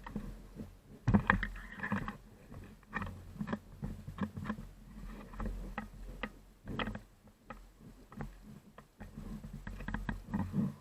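Irregular knocks, scuffs and rustling of movement close to the microphone, over a low rumble; the loudest knock comes about a second in.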